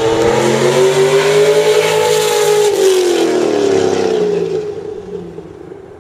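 Twin-turbo Lamborghini Gallardo passing at high speed: its engine note climbs slightly, then drops in pitch as it goes by near the middle, and fades away afterwards.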